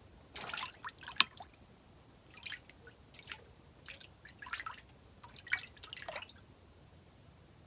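Scattered water drips and small splashes, about ten short plinks over six seconds, with one sharp click a little after a second in.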